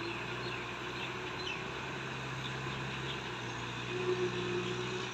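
Kubota M6040SU tractor's diesel engine running steadily under load as it drives a rotavator through flooded mud, heard from a distance as an even drone.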